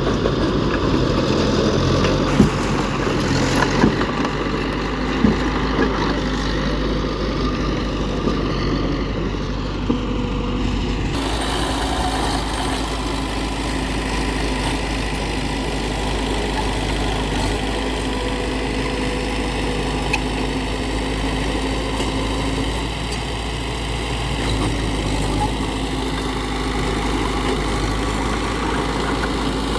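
Heavy diesel earthmoving machinery engines running steadily, with a few sharp knocks in the first several seconds.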